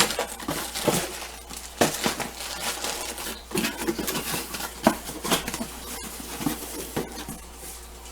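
Garage door opener parts and packaging being handled: irregular clicks and light clinks of small metal hardware and brackets, with some rustling.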